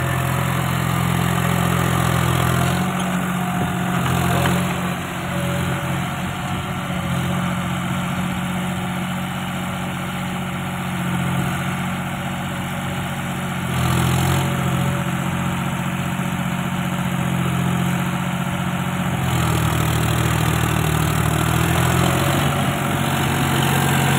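John Deere 5050D tractor's three-cylinder diesel engine running steadily while pulling a rotavator through the soil, its note shifting a few times: about three seconds in, near fourteen seconds and near twenty seconds.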